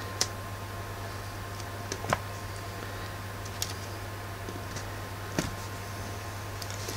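Four small sharp clicks and taps, a second or two apart, as small glued MDF crates are set and pressed onto a foam-core board, over a steady low hum.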